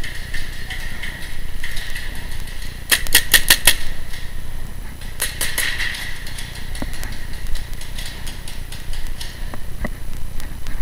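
Paintball markers firing in rapid bursts: a quick run of about six shots about three seconds in, then about four more a couple of seconds later.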